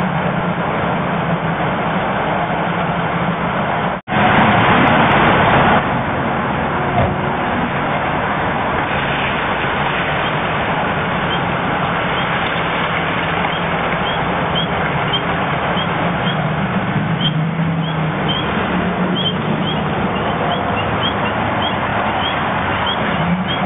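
Steady outdoor noise through a security camera's low-fidelity microphone, with the low hum of a vehicle engine running. The sound cuts out for an instant about four seconds in, then comes back louder for a couple of seconds. Short high chirps repeat irregularly through the second half.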